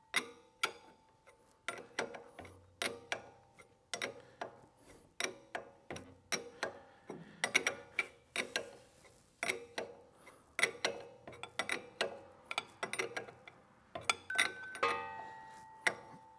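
A metal wrench clinking against steel hydraulic hose fittings as they are tightened: irregular sharp metallic clinks, about two a second, each with a brief ring.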